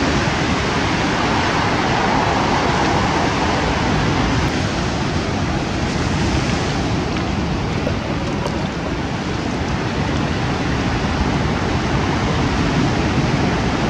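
Sea surf breaking and washing onto a pebble beach: a steady, loud rush of water.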